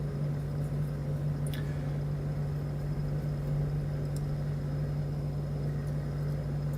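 A steady low hum, with a few faint light clicks of a metal shim being worked into a lock cylinder, about one and a half and four seconds in.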